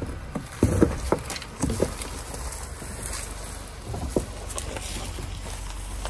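Suzuki Jimny 4x4 crawling slowly past over a rocky dirt track, its tyres crunching and snapping dry leaves, twigs and stones, with a low engine rumble underneath. The loudest crackles come about a second in and again near four seconds.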